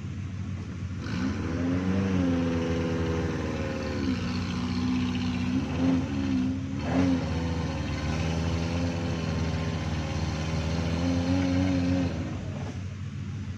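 Suzuki Jimny 4x4 engine working through a slippery off-road track: the revs rise about a second in and hold, drop back around four seconds, give two short blips in the middle, and rise briefly again near the end before easing off.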